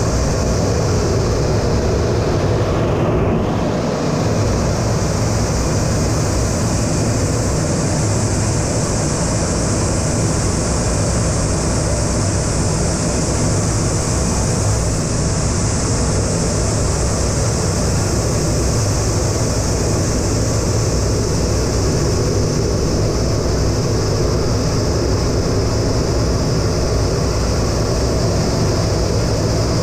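Steady engine and airflow noise inside an A-10 Thunderbolt II cockpit in flight: its two General Electric TF34 turbofans give a low rumble under a strong high hiss.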